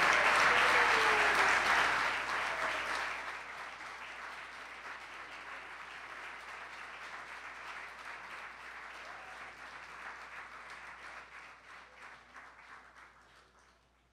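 Audience applauding at the end of a speech: loud at first, then slowly dying away over about ten seconds until only a few claps are left near the end.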